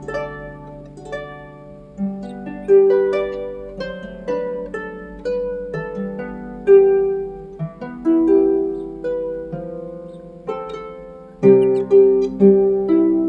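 Background music: a melody of notes that start sharply and fade away, over a lower bass line, with a burst of quick notes near the end.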